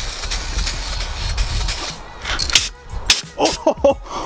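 Aerosol spray paint can spraying with a steady hiss for about two seconds, then stopping; a few short knocks and a brief voice follow near the end.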